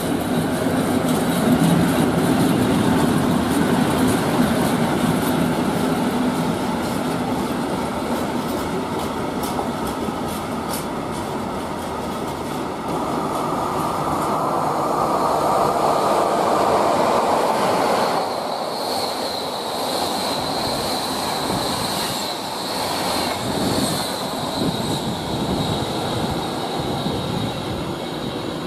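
PKP Cargo ET22 electric locomotive and its freight wagons passing at speed: a steady rumble with the clatter of wheels over rail joints. About eighteen seconds in, the rumble drops away and a high steady squeal carries on as the train draws off.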